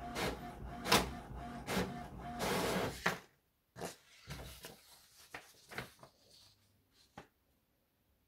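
HP OfficeJet Pro inkjet printer running as it finishes and ejects a copied page: a fast, even mechanical rhythm that cuts off about three seconds in. Then soft paper rustles and a few light clicks as the sheet is pulled from the output tray.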